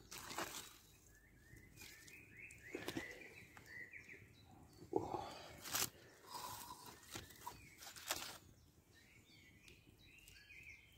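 Quiet outdoor background with a wood campfire crackling, giving a few sharp cracks spaced seconds apart, and faint bird chirps.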